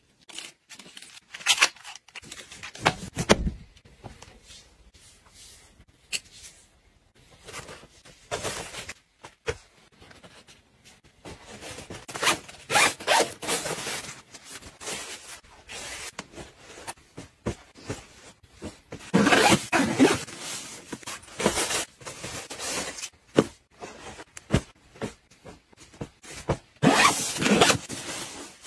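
Hands handling polyester mesh packing cubes, with fabric rustling and zippers being run along them; the longest, loudest zip runs come in the middle and near the end. Early on a drawstring pouch is cinched shut.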